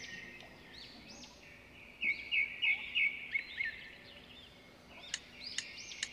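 Small birds chirping over and over, with a louder run of quick chirps about two seconds in. A couple of faint clicks near the end.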